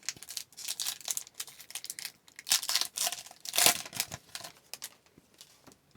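Crinkling and rustling of hockey card packs and cards being handled, in irregular bursts that die away about five seconds in.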